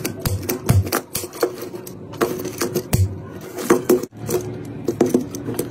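Irregular sharp clicks and knocks of a plastic two-pole miniature circuit breaker being handled and turned over in the hands.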